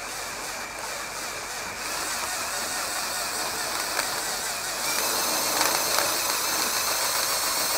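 A cordless drill spinning the rotors of a 3D-printed plastic turbofan engine model from the rear, bedding the rotors in as the printed parts wear. The steady whir grows louder about two seconds in, and again near five seconds, when a high whine joins it.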